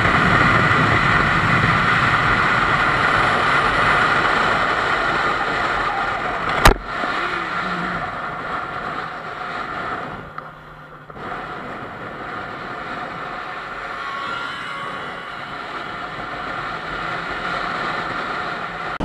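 Motorcycle riding at highway speed, heard from the rider's camera: a steady rush of wind over the microphone with the engine running underneath. There is one sharp knock about six and a half seconds in.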